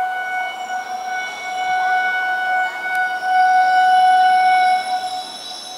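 Air horn of an approaching EMU electric local train sounding one long, steady note, growing louder towards the end and cutting off about five seconds in.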